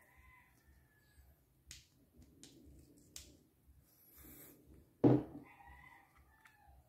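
Hands handling a WE G34 gas blowback pistol's metal magazine: a couple of light clicks, then one loud thump about five seconds in as the magazine is set down on a wooden table.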